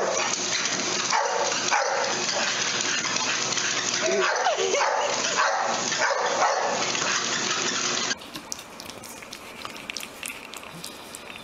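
A dog whining and yipping in short rising and falling cries over steady background noise. About eight seconds in the sound cuts off and turns much quieter: a puppy lapping and chewing at a plate of food, with small wet clicks.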